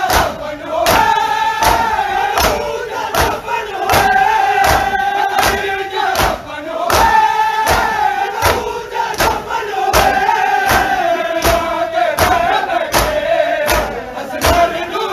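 A large crowd of men chanting a noha lament in unison while beating their chests in matam. The sharp slaps fall in a steady beat of about two to three a second, under sung lines that come in phrases of a couple of seconds each.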